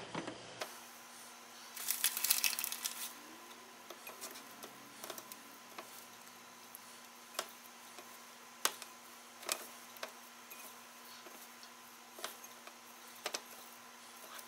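Hands working raw fish strips through a ceramic bowl of sugary dry rub: soft squishing and rustling, loudest about two seconds in, then scattered light clicks as the pieces are handled.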